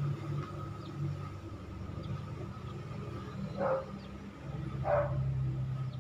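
A dog barking twice, two short barks about a second apart in the second half, over a steady low mechanical hum.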